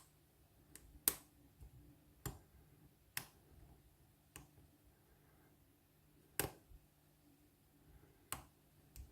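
Irregular small clicks from a hook pick working the pin stack of a Lockwood oval pin-tumbler cylinder under tension, as pins are lifted and set; about nine clicks, the loudest about a second in.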